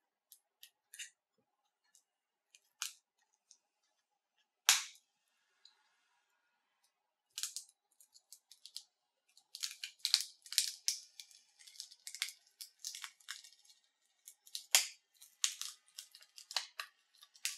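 Shattered front glass of a Nokia Lumia 930 cracking and snapping as it is pried off the frame with a small screwdriver. A few scattered clicks at first, one sharp crack about five seconds in, then a dense run of crackling from about halfway on.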